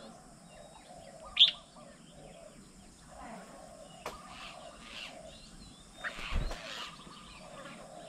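Many birds chirping and calling together in a busy mix of small calls, with one loud, sharp call about a second and a half in. Past the middle comes a louder burst with a low thump in it.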